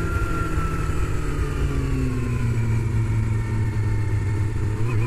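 Yamaha sportbike engine running on the open road, heard close up from the fuel tank. Its pitch sinks slowly for about three seconds as the bike eases off, then climbs again near the end as it pulls away.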